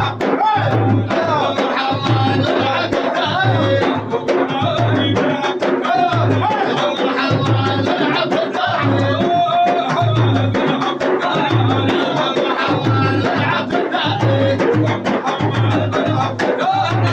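Sufi madeeh music: drums keep a steady, even beat under group singing.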